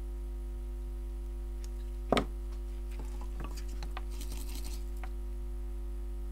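Steady electrical hum from bench equipment, with small clicks and taps of tools being handled and one sharper click about two seconds in.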